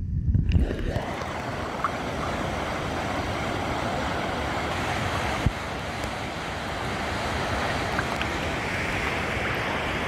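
Water heard through a submerged microphone, a muffled low rumble, then as the microphone breaks the surface about a second in, the steady rush of the Ézaro waterfall with water lapping close by. A single brief knock about five seconds in.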